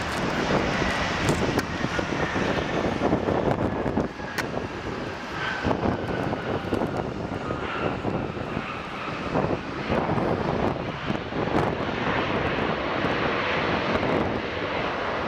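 Jet airliner's engines, a loud, steady rumble with a faint whine that slowly falls in pitch as the aircraft passes.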